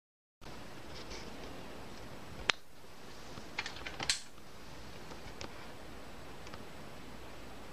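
A few sharp clicks and taps over a steady hiss: one loud click about two and a half seconds in, a quick cluster of clicks around four seconds, then a few faint ticks.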